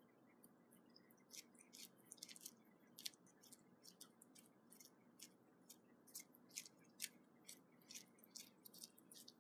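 A cat's tongue licking clear stretch plastic wrap, making a faint, quick series of small crinkly clicks about two or three a second that begins about half a second in.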